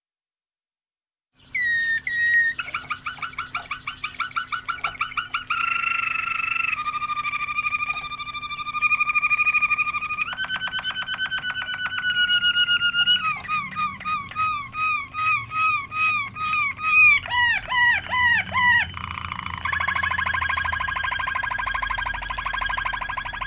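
Malinois waterslager song canary singing a continuous run of tours, starting about a second and a half in. It goes from rapid repeated notes into steady rolling trills, then a series of falling swoops, then another rolling trill near the end.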